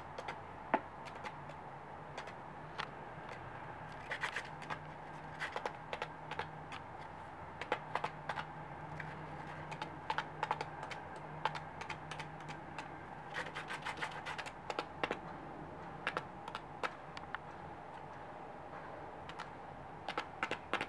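Japanese quail dust-bathing in sand in a plastic tub: scratching and flicked sand grains ticking against the tub in irregular bursts of quick clicks and rustles, over a faint steady hum.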